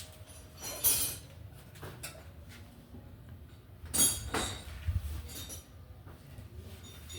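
Two loud clinks of hard objects knocked together, about a second in and again about four seconds in, with a few fainter clicks between, over a low steady hum.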